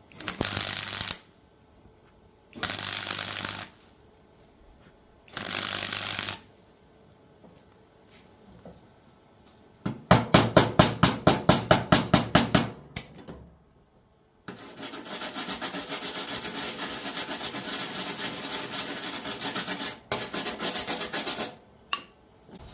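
Gasless MIG welder tacking cracks in a mower's body panel: three short arc bursts of about a second each, then a stretch of rapid pulses at about five a second, then a longer steady weld run of about seven seconds, broken briefly near the end.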